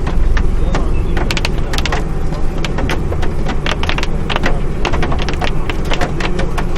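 Rain or hail striking a vehicle: many irregular sharp taps over a steady low rumble.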